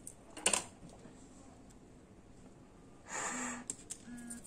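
A short click about half a second in, then a breath out through the nose about three seconds in, followed by a brief low hum from the same person.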